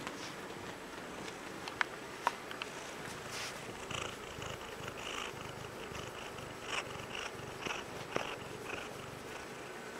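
Bengal cat purring close up, a steady low rumble. Two sharp clicks come about two seconds in, and bursts of rustling follow from about three seconds in.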